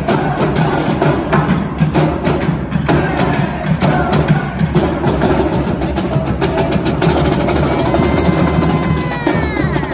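Marching drumline playing a fast cadence on snare and bass drums, with rapid crisp stick strokes over crowd chatter. A falling tone sounds near the end.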